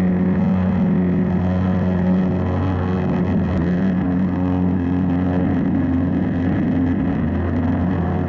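A pressure washer running steadily, its turbo nozzle blasting water onto terracotta roof tiles as it strips off lichen, over a constant low engine-like drone from the machine.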